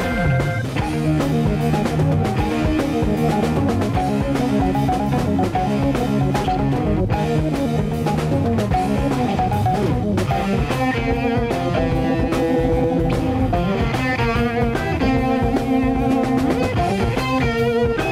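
A rock band playing an instrumental passage: electric guitar, organ and drum kit with a steady beat.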